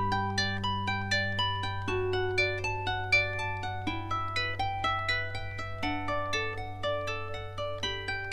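Instrumental background music: quick plucked harp-like notes in a running pattern over a held low bass note.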